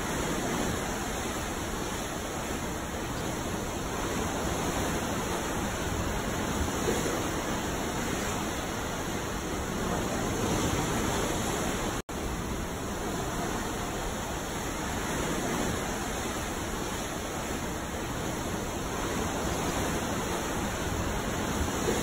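Ocean waves: a steady rushing wash of sea water that swells and eases every few seconds, with a momentary gap about halfway through.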